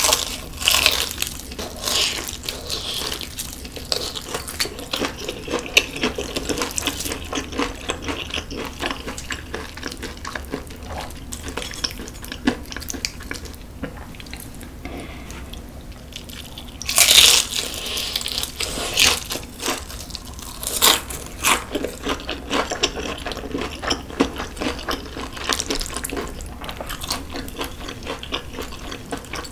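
Close-miked eating: crisp fried chicken crunching under the teeth, then wet chewing with small clicks and smacks, and another loud crunchy bite about 17 seconds in.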